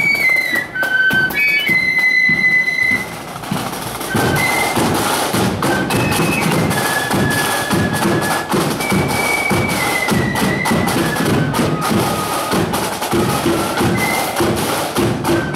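Marching flute band playing a melody on flutes over a steady march beat of bass and side drums. After a short lull about three seconds in, the drumming comes in fuller and carries on under the flute tune.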